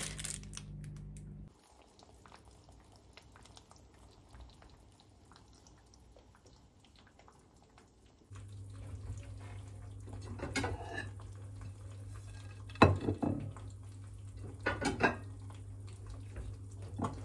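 Kitchen sounds: quiet for several seconds, then a steady low hum while eggs fry in a pan on an induction hob. Over the hum come a few separate clinks and knocks of plates and dishes on the worktop.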